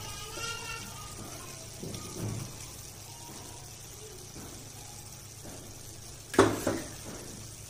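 Steel ladle stirring tomato puree into frying onion masala in an aluminium kadai, with a faint sizzle and wet stirring. About six and a half seconds in, two loud knocks close together, the ladle striking the pan.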